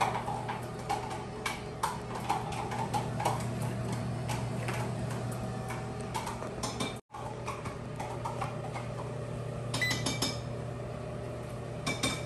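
Countertop air fryer oven running with its rotisserie spit turning a whole chicken: a steady hum from the fan and motor, with scattered light clicks and clinks.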